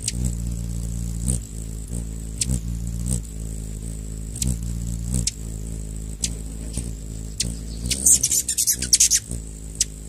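Hummingbird wings humming as a steady low buzz, with short sharp chip calls every second or so and a rapid burst of high chattering calls about eight seconds in.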